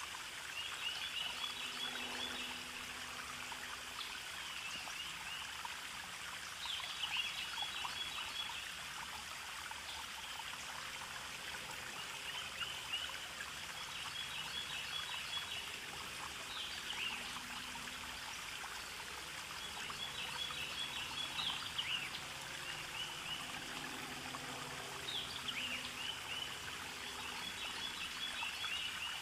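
Steady rush of running water with bird calls, short high chirps and trills, recurring every few seconds.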